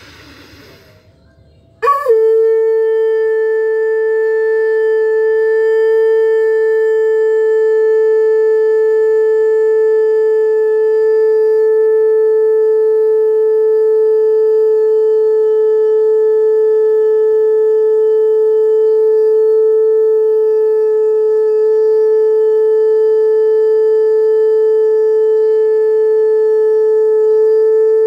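Panchmukhi (five-faced) conch shell blown as a horn: a single note starts suddenly about two seconds in and is held steady without a break.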